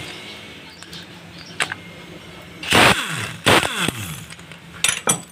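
A handheld power tool spinning out the clutch pressure-plate spring bolts, running twice in short bursts about three seconds in, each winding down with a falling pitch, with metallic clinks of the loose bolts and clutch springs near the end.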